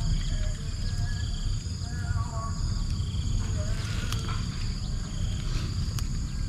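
Insects trilling steadily in several high tones, with short repeated animal calls lower down and a low rumble underneath.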